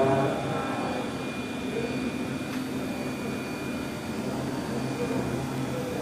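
Double-column CNC machining centre running in a workshop: a steady mechanical hum with a thin, high steady whine over it.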